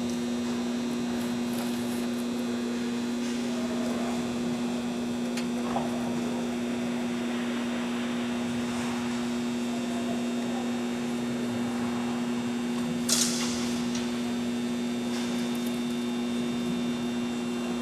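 Steady electrical hum: two constant low tones that do not change. A brief sharp noise cuts in once about thirteen seconds in.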